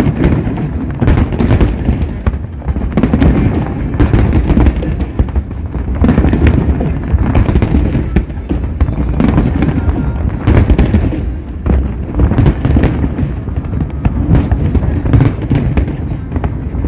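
Fireworks display going off continuously: a dense low rumble of booming shells with many sharp cracks and pops on top, several each second.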